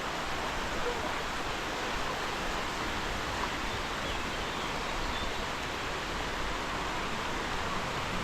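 A stream of water rushing steadily, an even hiss of running water.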